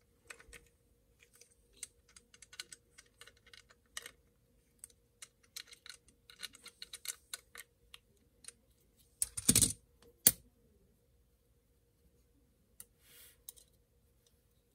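Small scattered clicks and taps of a Spyderco folding knife's handle parts and screws being handled and fitted during reassembly, with a louder clatter about nine and a half seconds in and one sharp click just after. A faint steady hum runs underneath.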